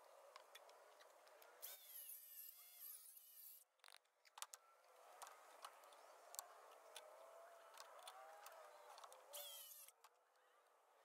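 Near silence: faint background with a few scattered faint clicks.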